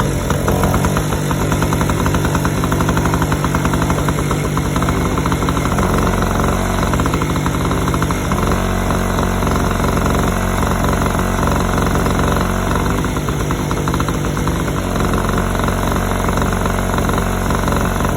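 Tiger portable generator's engine running steadily; its note changes about eight seconds in as the capacitor wire is connected and removed. The change in engine sound shows the newly fitted 30 µF capacitor is good.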